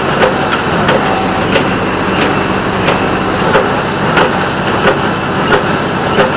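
Massey Ferguson 1837 small square baler working behind a John Deere 5055E tractor. The baler's plunger knocks steadily, about one and a half strokes a second, over the steady running of the tractor's diesel engine and the baler's drive.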